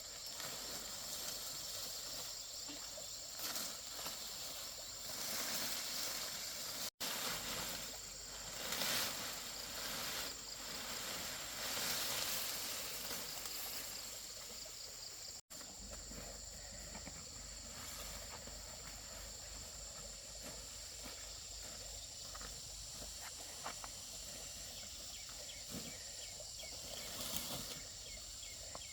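Rural outdoor ambience with a steady high insect drone. Scattered brief rustling and handling noises come through the first half, and the audio cuts out twice for an instant.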